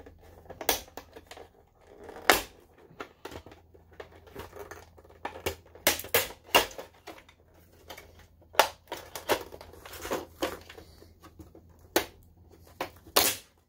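Plastic top cover of an Optoma HD27 projector being pried off by hand: an irregular run of sharp clicks and snaps as its snap-fit clips let go and the plastic case is handled, with a few louder knocks.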